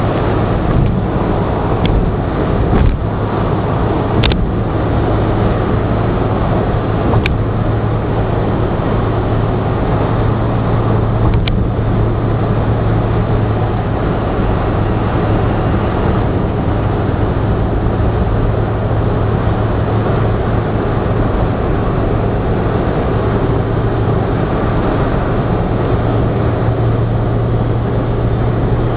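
Inside a car cruising at expressway speed: steady engine drone with tyre and wind noise. A few faint clicks come in the first dozen seconds.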